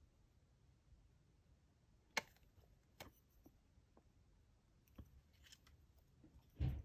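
Quiet nail-art handling: a few sharp clicks of long false nails and a fine nail brush tapping against the gel palette and tabletop, the loudest about two seconds in, then a dull thump just before the end.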